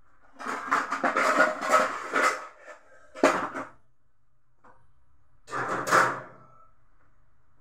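Kitchen pots and bowls being handled, knocked and scraped in three bursts, with a little metallic ringing.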